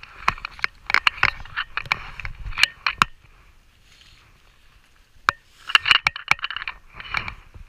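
Handling noise at the water's edge: a run of sharp clicks, splashes and scrapes for about three seconds as a netted steelhead is unhooked, then after a lull a second burst of scraping and crackling as a chest pack is handled.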